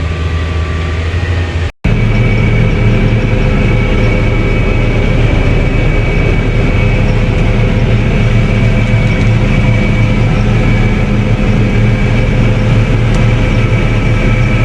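Heavy farm machinery running steadily: a loud, even engine drone with a constant high whine over it. The sound cuts out for an instant about two seconds in and comes back louder with a different tone.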